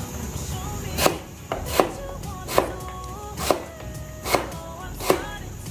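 Kitchen knife chopping down onto a cutting board in slow, even strokes, a little more than one a second.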